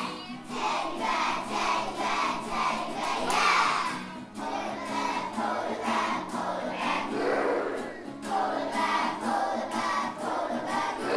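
A group of young schoolchildren singing a song together over a backing track with a steady beat.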